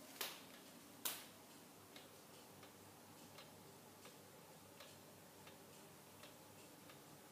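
Hermle weight-driven pendulum regulator wall clock ticking steadily, a bit more than one tick a second. The first two ticks are much louder, and the rest are faint.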